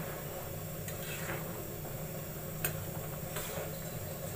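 A ladle stirring boiled green chickpeas in a pot, with about three light clinks against the pot over a steady low hum.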